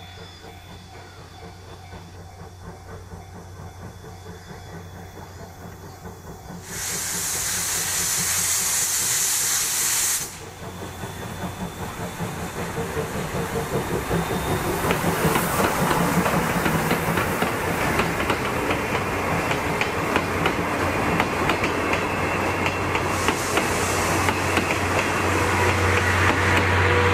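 Class C58 steam locomotive starting away: a loud hiss of steam about seven seconds in, lasting a few seconds and cutting off suddenly, then exhaust chuffs building up and growing louder as it pulls out.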